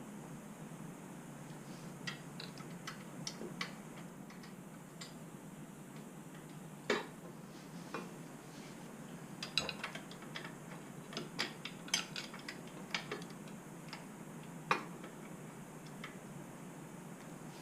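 Irregular light metallic clicks and clinks as a motorcycle backrest support bracket and its bolts are handled and fitted into place.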